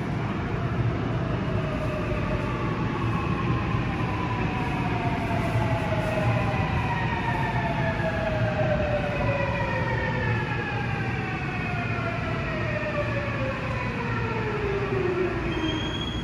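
Seoul Subway Line 8 electric train arriving at a station and braking to a stop, over a low rumble. Its traction motors whine in several parallel tones that fall steadily in pitch as it slows. A steady high tone starts just at the end.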